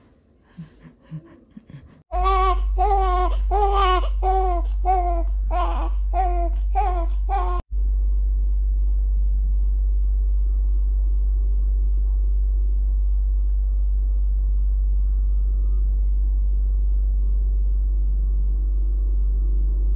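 A run of about ten short, rhythmic, laugh-like voiced sounds, roughly two a second, over a steady low hum. They stop abruptly a little after halfway, leaving only the low hum.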